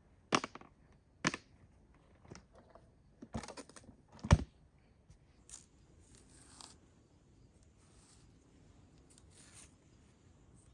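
A few sharp clicks and knocks, the loudest about four seconds in, followed by lighter scraping and rustling.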